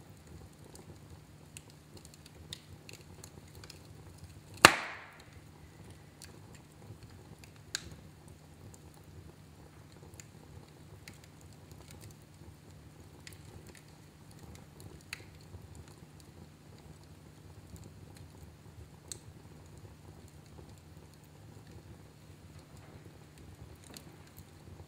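Wood fire burning in a fireplace: scattered soft crackles over a faint low rumble, with one loud, sharp pop about five seconds in and a smaller one a few seconds later.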